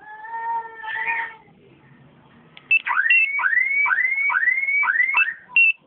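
Aftermarket two-way car alarm siren sounding: a held tone for about a second, then after a pause a run of about six rising whoops, roughly two a second, mixed with short high beeps.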